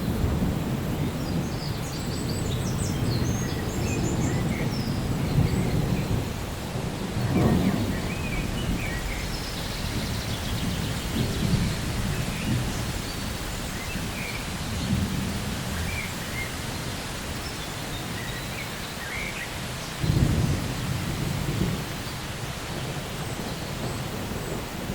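Thunder rumbling over steady rain, with a louder roll about seven seconds in and another about twenty seconds in.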